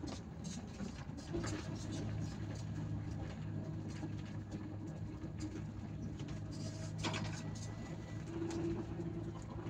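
Bus engine running steadily while cruising, heard from the driver's cab as an even low hum, with a few light clicks and rattles, one a little past halfway.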